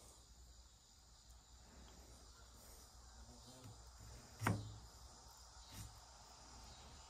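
Quiet knife work on a wooden cutting board while filleting a bowfin, with one sharp knock on the board about four and a half seconds in and a couple of lighter taps around it. A faint steady high-pitched drone runs underneath.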